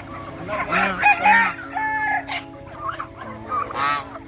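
Farmyard poultry calling: a rooster crows with one held call about halfway through, amid clucking and shorter calls from other fowl.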